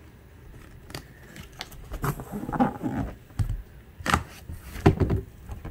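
Cardboard box flaps being pulled open and handled: scraping and rubbing of cardboard with several sharp taps and thumps, the loudest a little after four seconds in and again near five.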